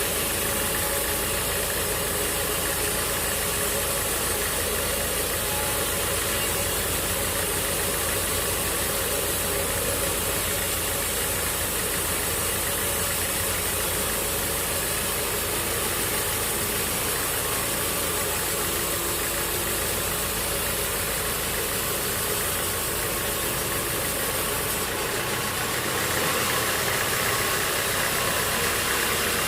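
Sawmill machinery running steadily, an engine-driven drone with a rattle. Near the end the deep low drone drops away and the sound turns brighter.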